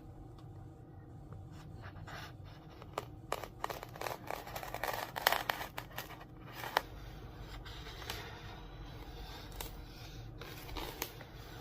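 Blue painter's tape being pulled and pressed across the seam of thin wood veneer panels: a run of short scrapes, crackles and clicks, busiest in the middle, then quieter rubbing.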